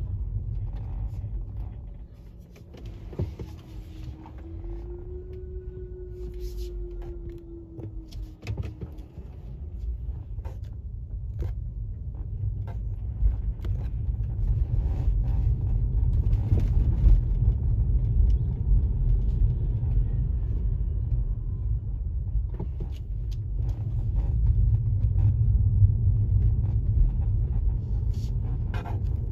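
Low rumble of a car driving slowly on city streets, heard from inside the cabin, getting louder after about twelve seconds in. Scattered small clicks and knocks, and a faint held tone from about three to nine seconds in.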